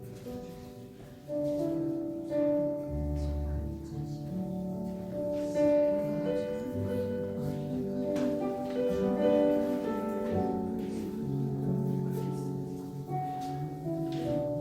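Electronic keyboard playing a slow hymn in sustained chords over a bass line.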